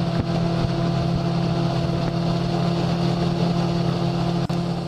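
Small riverboat's outboard motor running at a steady speed, holding one even pitch while the boat travels along the river.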